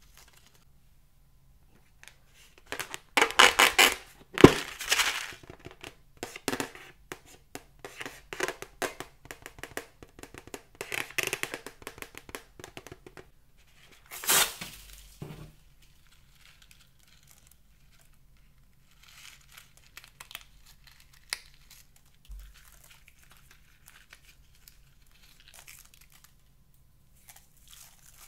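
Rubber balloon and foam beads being handled, with loud crinkling and rubbing a few seconds in. About halfway through there is one sharp snip as scissors cut the balloon's neck, followed by faint scattered crackling of foam beads.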